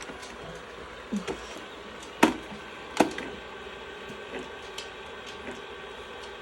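Shark robot vacuum running with a steady whir as it manoeuvres while trying to dock. Two sharp knocks come about two and three seconds in, and a softer one about a second in.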